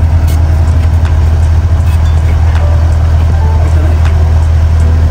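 Large engine running steadily with a constant deep hum, with a few faint clicks over it.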